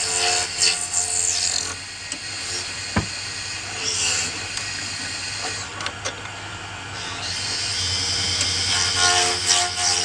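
Wood lathe turning a wooden bobbin blank, a hand-held cutting tool scraping and hissing against the spinning wood in bursts over the motor's steady hum. The cutting grows louder in the last few seconds, and there is one sharp click about three seconds in.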